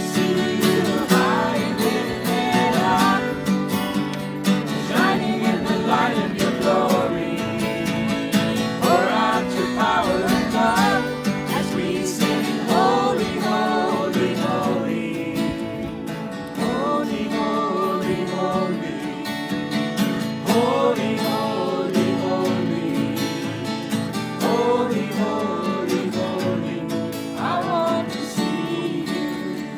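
Two acoustic guitars strumming a worship song, with voices singing along.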